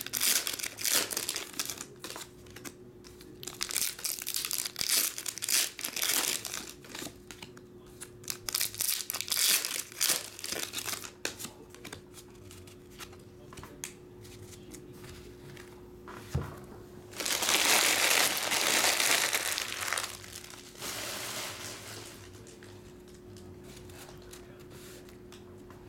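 Foil booster-pack wrappers crinkling and tearing as Pokémon card packs are opened, in irregular bursts over the first half, with the loudest stretch of rustling about seventeen to twenty seconds in. A faint steady hum lies under it.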